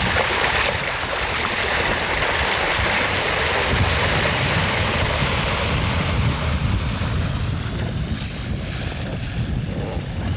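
Wind buffeting the microphone over water rushing along the hull of a boat under way; the hiss of the water swells in the middle and eases near the end.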